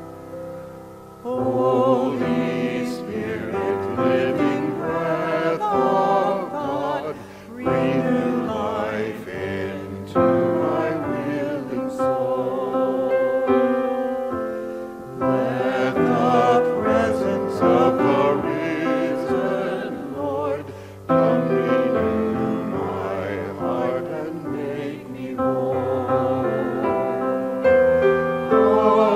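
Small group of men and women singing a hymn together with piano accompaniment; the singing comes in about a second in, phrase by phrase.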